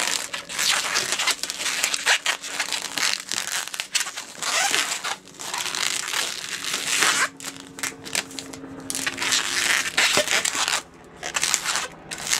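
Two inflated Qualatex 260 latex balloons being squeezed and twisted together by hand, close to the microphone: latex rubbing and squeaking against latex and fingers, in irregular spells with brief pauses.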